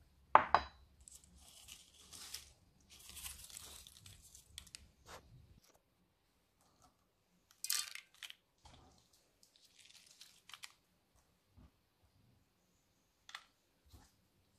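Whole spices and leaves being added by hand to a pot of coconut milk: a sharp clack about half a second in, then a few seconds of rustling and crinkling, and scattered light taps and clicks later on.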